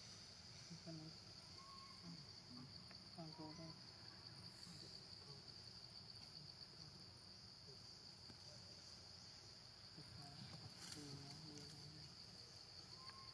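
Faint, steady high-pitched drone of insects such as crickets, with a few faint short calls in the background.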